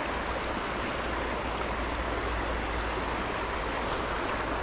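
Small rocky creek flowing over stones in shallow riffles: a steady rush of running water.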